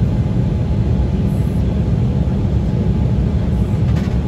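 Steady cabin noise inside an Embraer ERJ-175 airliner descending toward landing: an even low rumble of airflow and its wing-mounted General Electric CF34 turbofan engines.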